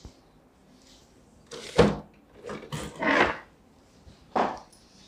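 A few short knocks and rustles of something being handled and moved. The loudest is a sharp knock about two seconds in, followed by rustling bursts around three seconds and again near the end.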